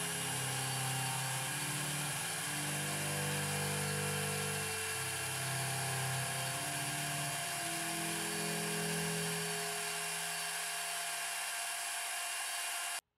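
Electric palm trim router running at high speed, its small bit cutting freehand lettering into beech wood: a steady high-pitched whine that cuts off suddenly near the end.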